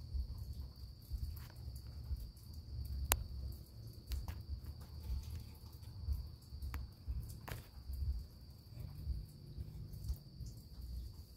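Crickets trilling as a steady, high night chorus over a low, uneven rumble, with a few sharp clicks.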